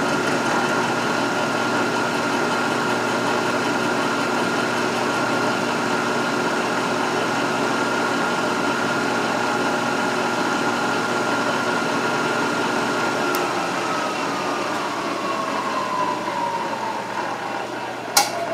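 Milling machine running an end mill along the edge of a hot-rolled steel block held in a vise: a steady whine of motor and cut. About two-thirds of the way through the whine slowly falls in pitch as the spindle slows, and a sharp click comes near the end.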